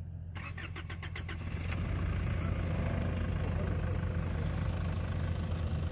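Vehicle engine running steadily at low revs, with a quick run of clicks or rattles from about half a second to two seconds in.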